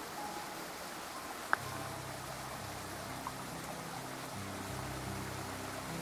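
Steady hiss of a small creek's running water under soft background music, whose low held notes come in about a second and a half in and grow fuller; a single sharp click sounds just as the low notes enter.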